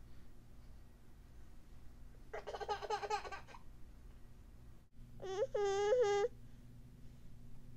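A toddler's voice: a short babble about two seconds in, then a louder, higher, wavering sing-song call around five seconds in.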